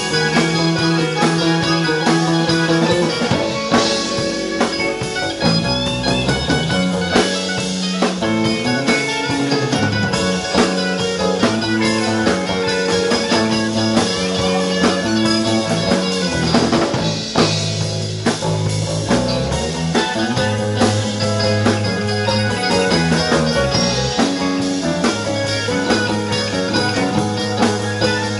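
Live rock band playing an instrumental jam: electric guitars, bass guitar and keyboard over a drum kit, with no vocals.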